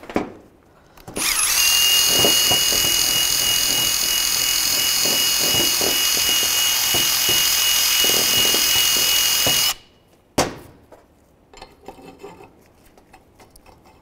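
Power drill spinning a cleaning bit inside the rusted slider-pin bore of a brake caliper bracket, clearing corrosion so the binding pin will slide. It runs steadily for about eight seconds with a high motor whine over scraping, then stops suddenly. A click and light metal rubbing follow as the slider pin is worked back into the bore.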